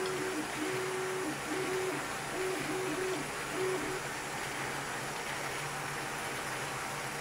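Small motor-driven 3D-printed model Ford flathead V8 running, a steady whir with a low hum. For the first four seconds a broken pattern of two low alternating tones sounds over it, then stops.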